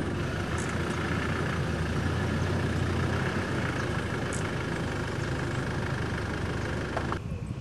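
Off-road vehicle engine running at low revs, a steady low hum as vehicles creep across a dirt yard; it cuts off suddenly about seven seconds in.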